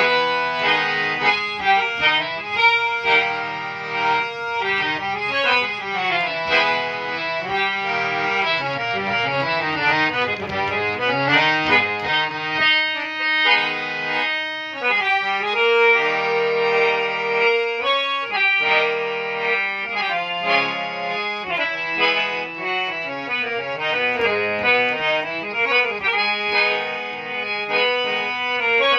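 Asghar Ali hand-pumped harmonium playing a melody, its reeds sounding stepwise runs and some notes held for a second or more, over a steady tone fed by the bellows.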